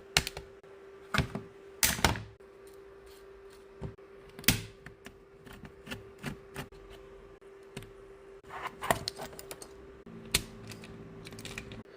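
Plastic clicks, snaps and knocks of an Xbox Series controller being taken apart, scattered and irregular, a couple of louder snaps among them, over a faint steady hum.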